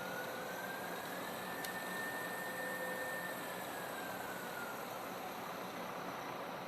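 Hardinge HLV-H tool room lathe running over a steady hiss, its whine rising in pitch over the first two seconds, holding, then falling away about five seconds in as the variable spindle speed is brought up and back down.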